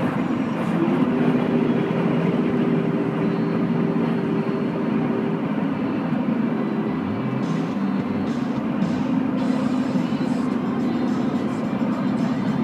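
Steady road and tyre noise inside a car cabin at highway speed, with music from the car's stereo playing underneath.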